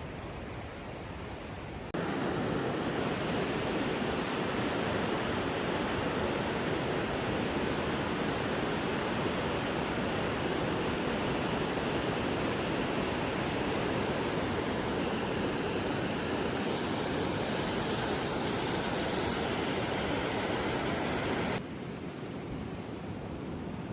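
Steady rushing water from a creek and waterfall. It jumps suddenly louder about two seconds in and drops back just as suddenly near the end.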